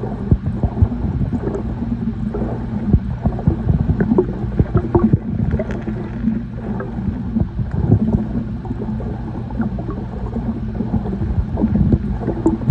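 Muffled water gurgling and crackling over a steady low hum, with the close, dull character of sound picked up underwater in a spa.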